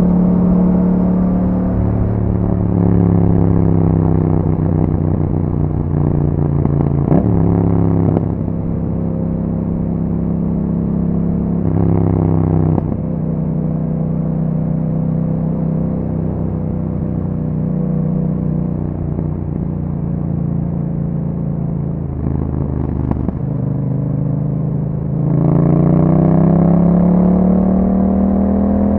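2021 Yamaha MT-07's 689 cc parallel-twin engine through an Akrapovic exhaust under way. The pitch drops several times at gear changes, holds steady for a long cruising stretch in the middle, then rises as the engine accelerates near the end.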